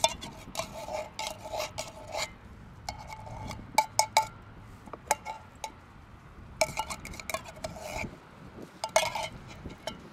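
A metal spoon scraping and clinking inside an opened tin can, scooping out wet food, in several short bursts of strokes with a brief metallic ring.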